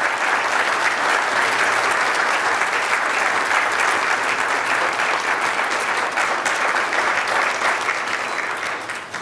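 Audience applauding at the end of a talk, a steady round of clapping that fades out near the end.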